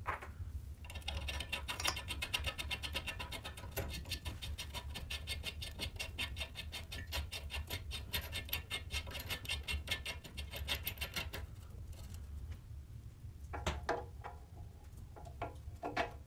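Fast run of small metallic ticks as a steering head bearing race is turned by hand on a moped's head tube. It stops about eleven seconds in, followed by a few separate clicks.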